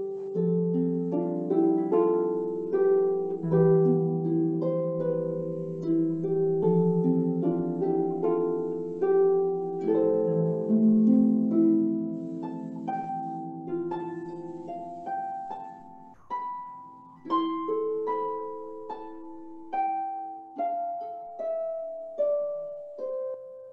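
Solo harp playing: a slow melody of plucked notes over held bass notes, each note ringing and then fading. The playing thins out and grows quieter about two-thirds of the way through, then picks up again with sharper plucked notes.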